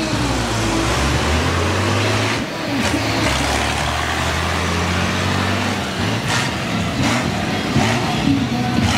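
Engines of big-wheeled monster-truck show cars running with a deep steady rumble as they drive along the track, easing off about six seconds in. A few short sharp noises sound over it.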